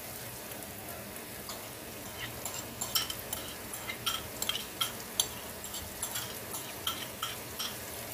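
Oil sizzling in a frying pan with sautéed onion, garlic and chili. From about two and a half seconds in it breaks into sharp crackling pops as vinegar-soaked fermented shrimp paste (alamang) is dropped into the hot oil.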